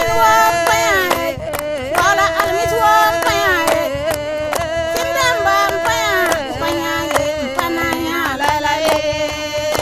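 Music: a singing voice with sliding, ornamented notes over a steady held drone, with frequent short percussion strikes.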